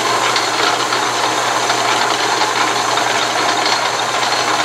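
Atlas/Craftsman 12-inch metal lathe running steadily in reverse, its motor and gear train driving the carriage back along the engaged lead screw to return the tool for the next thread-cutting pass.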